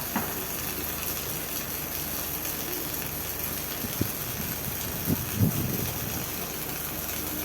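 Robotic welding cell running: steady machine hum and hiss with a few sharp clunks, the loudest about five seconds in.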